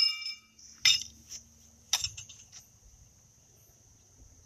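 Two sharp metallic clinks of pitching horseshoes knocking together as they are carried, about a second apart, followed by a few fainter ticks. A faint steady high chirring of insects runs underneath.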